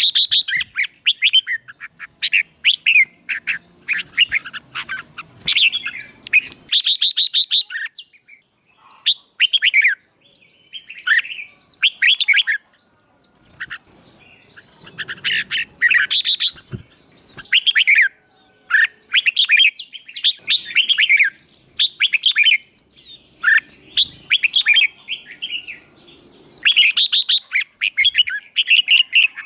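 Close, loud songbird song: fast, chirping, warbling phrases delivered in repeated bursts with short pauses between them. This is the excited fighting song of a bird being stirred up to sing competitively.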